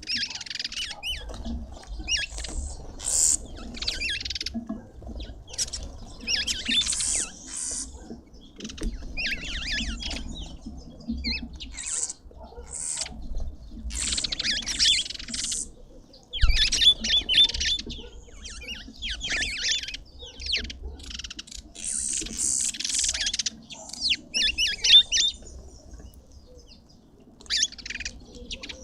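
Small birds chirping and twittering in quick, high-pitched bursts, one flurry after another.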